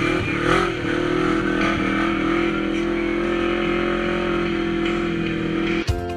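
Side-by-side UTV engine running steadily under way, with a brief rev about half a second in. Near the end it cuts abruptly to music with a beat.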